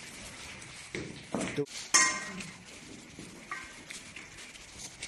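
Stainless steel food bowls knocking and clinking on a tiled floor as they are set down. A couple of duller knocks come about a second in, then the loudest clink about two seconds in, which rings briefly. A lighter ring follows about three and a half seconds in.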